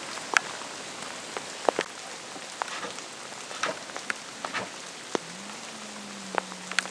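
Steady rain falling, with individual drops ticking sharply and irregularly on hard surfaces close by. A faint steady hum comes in about five seconds in.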